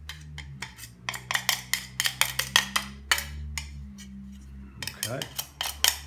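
A small hand tool scraping and clicking against the metal plate of a Henry vacuum cleaner's carpet head, digging out packed dog and carpet hair. It comes as quick, irregular scrapes and ticks, with a short lull near the end, over a faint low hum.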